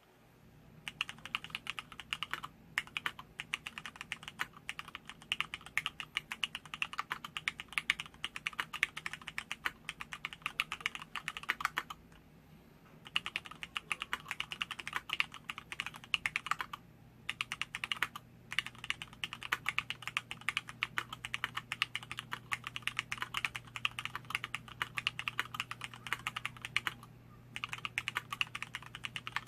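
Continuous fast typing on an LZ-IRON custom mechanical keyboard with Cherry MX Black linear switches, an aluminum plate and PBT keycaps: a dense run of keystroke clacks, broken by a few brief pauses.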